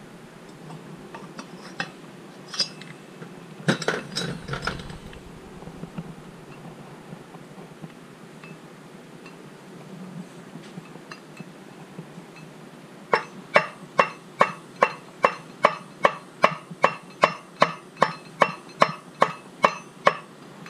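A few metal parts clinking and set down on a workbench, then a steady run of sharp hammer taps, about two and a half a second, beating a crankshaft into its bearing in a billet chainsaw crankcase.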